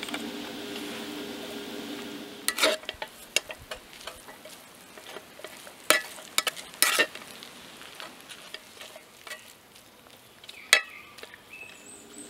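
Spicy stir-fried chicken sizzling in a 10-inch Lodge cast iron skillet. The sizzle is strongest in the first couple of seconds, then fainter, under a scatter of sharp knocks and scrapes as udon noodles are dropped in and worked through with a wooden spatula.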